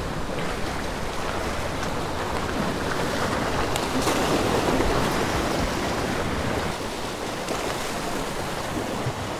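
Sea waves washing and breaking against the jetty's stone boulders in a steady rush of surf, swelling about four seconds in, with wind buffeting the microphone.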